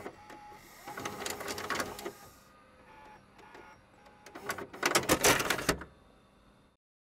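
A sound-effect sting for an animated title card: two bursts of rapid mechanical clicking and clattering, with a few short beeps between them. The second burst, about five seconds in, is the loudest, and the sound stops shortly before the end.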